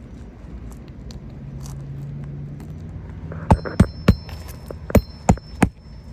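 Hammer driving roofing nails into a shingle: six sharp metallic strikes in two quick sets of three, each with a brief ring.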